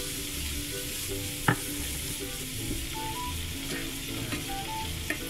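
Hot oil sizzling steadily as shrimp deep-fry in a saucepan and garlic, leeks and breadcrumbs fry in a pan beside it. A slotted spatula stirs the pan, giving one sharp knock about a second and a half in and a few lighter clicks near the end.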